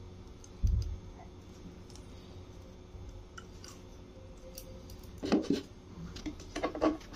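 Plastic parts of a Kent water purifier being handled: small clicks and rattles from its plastic tap and clear plastic container, with a dull thump under a second in and bursts of louder clatter about five seconds in and again near the end.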